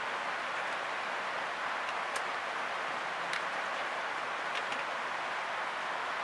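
Steady background hiss with a few faint, light clicks as a Canon 60D DSLR body is handled.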